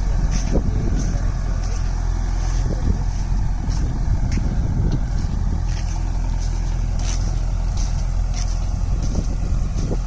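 JCB 3DX backhoe loader's diesel engine running steadily while the machine stands still.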